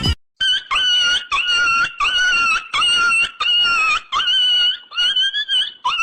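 A run of short, high-pitched squeaky calls, about ten in six seconds, each about half a second long and rising slightly at its start: a comic squeak sound effect.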